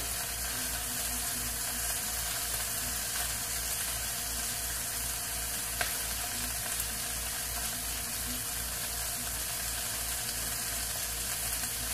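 Bacon and collard greens sizzling steadily in a cast iron skillet, with one small click about six seconds in.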